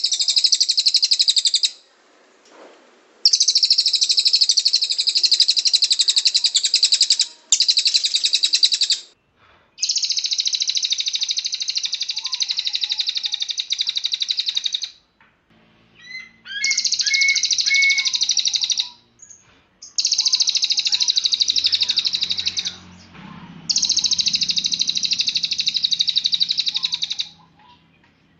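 Cililin bird singing in 'tembakan' bursts: long runs of extremely rapid, high-pitched trilling notes, each lasting a few seconds, repeated about seven times with brief pauses between them.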